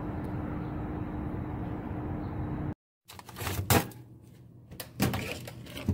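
Steady outdoor background noise with a constant hum. After a sudden cut, a refrigerator door is opened and things on its shelves are handled, with a few sharp knocks and clicks.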